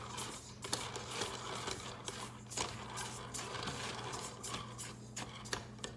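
Silicone spatula stirring dry flour and seasonings in a stainless steel mixing bowl, with irregular soft scraping and scuffing strokes. A steady low hum runs underneath.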